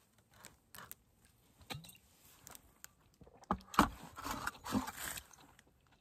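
Close-up eating and handling sounds: chewing and small scattered clicks, with a denser burst of rustling and knocks about three and a half seconds in that lasts under two seconds.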